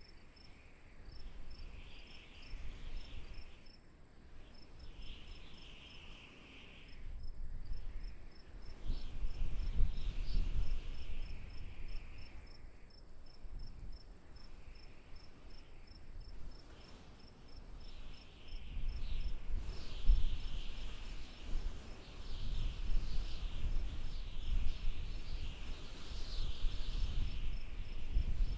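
Crickets and other insects chirping: a steady high trill and a fast, even pulsing, with patches of lower, scratchier chirping. A low rumble comes and goes, swelling twice.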